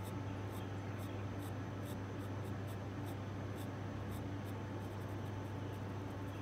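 Graphite drawing pencil making short, light strokes on sketchbook paper: a quick, irregular series of faint scratches, over a steady low hum.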